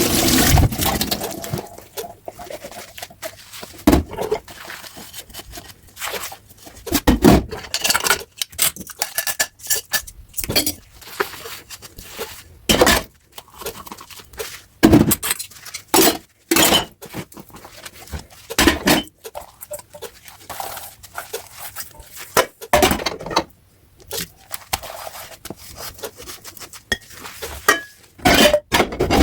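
Dishes, cutlery and pots being handled while washing up at a sink: irregular clinks, clatters and knocks of crockery and metal, with softer rustling between them.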